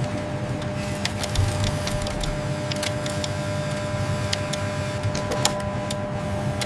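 Automated analysing machine running with a steady hum and a held tone, with irregular sharp clicks and ticks over it.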